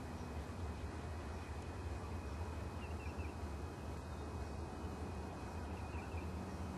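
Steady low rumble and hiss of open country, with faint songbird chirps twice, a few quick high notes each time, about three seconds in and again near the end.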